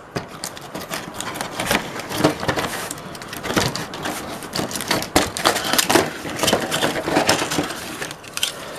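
Plastic model-kit parts and their packaging being handled close by: irregular crinkling, light clicks and clattering of plastic pieces.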